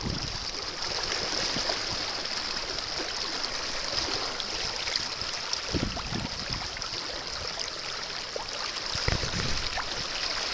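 Fast river current rushing and splashing around a wading angler's legs, a steady hiss of moving water, with a few brief low thumps about six and nine seconds in as his hand works in the water.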